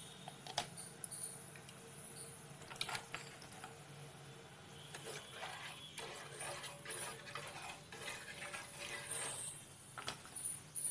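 Faint scattered clicks and light taps of a spoon and hand working in an aluminium pot of water with whole spices, over a low steady hum.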